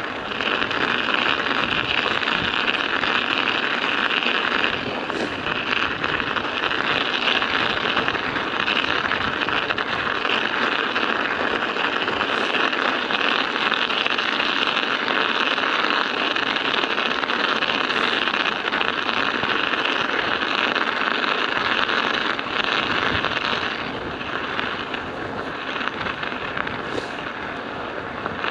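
Studded bicycle tyres rolling on ice and hard road, the metal studs making a steady, dense clattering rattle. It drops a little quieter for a few seconds near the end.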